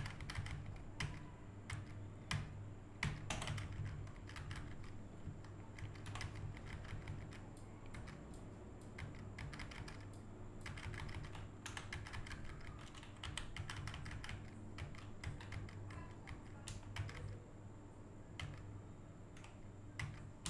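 Computer keyboard keys clicking irregularly, many short keystrokes, over a steady low hum.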